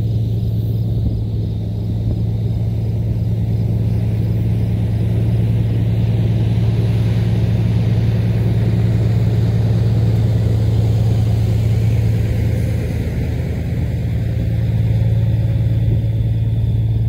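Semi truck's diesel engine running at a steady speed: a loud, deep, even drone.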